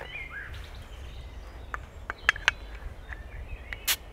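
A crown cap being prised off a glass beer bottle with a knife blade: a few light clicks of metal on metal and glass, then one sharp, louder click near the end as the cap gives.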